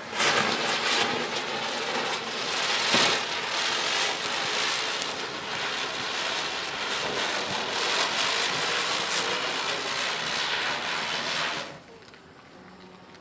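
Noble Fireworks Ground Chakkar Deluxe ground spinner firework hissing steadily as it spins and sprays sparks, then dying away near the end as it burns out.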